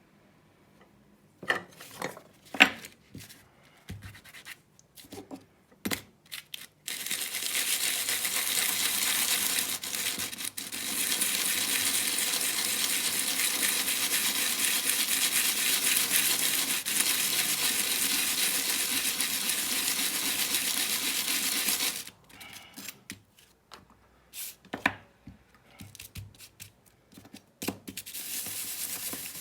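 Metal blade of an electric hair clipper being sharpened by rubbing it round and round on a rough abrasive surface: a long steady scraping hiss lasting about fifteen seconds, with a brief break partway through. Before and after it come scattered clicks and knocks as the blade is handled.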